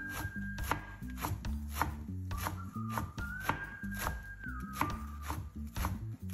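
Kitchen knife finely shredding a head of lettuce on a bamboo cutting board, about two cutting strokes a second, each stroke going through the leaves onto the board.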